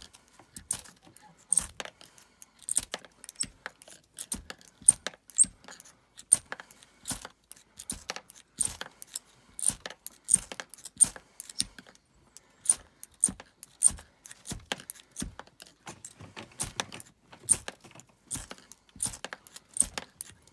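Steel striker scraped again and again down a fire-starter rod to throw sparks onto tinder: short, sharp metallic scrapes, about two a second, some louder than others.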